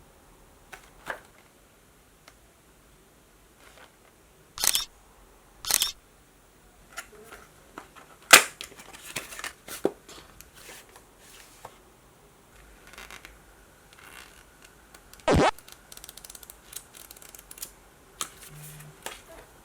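Watch packaging being handled and opened: scattered sharp clicks and knocks, the loudest about eight and fifteen seconds in, with scratching and crinkly rustling between.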